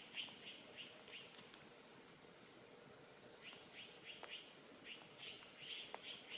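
Faint outdoor chirping: short high chirps at about three a second, dropping out for roughly two seconds in the middle, with a few scattered clicks.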